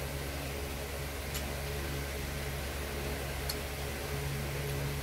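A steady low mechanical hum with a hiss, and two faint clicks about two seconds apart.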